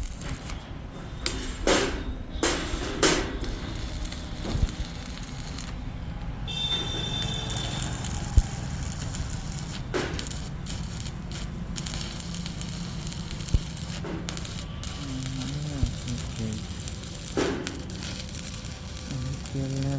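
Electric arc welding on iron: a steady crackling noise over a low hum, broken by a few sharp knocks.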